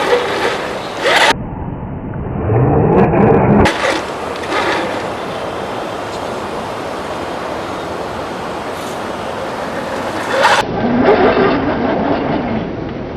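Electric motor and geared drivetrain of an Axial SCX10 III RC crawler, rising in pitch as it speeds up, twice, over a steady noisy background, with abrupt changes where the clips are cut.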